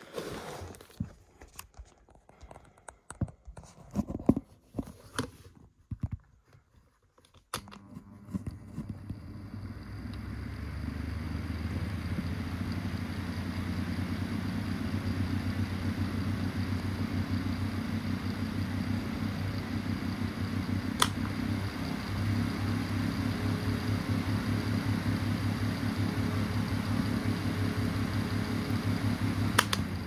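Scattered clicks and knocks, then a 1981 Pifco 9-inch desk fan starts about seven seconds in, its electric motor spinning up over a few seconds to a steady hum with a rush of air from the blades. A sharp click comes about two-thirds of the way through, after which it runs a little louder, and another click comes near the end.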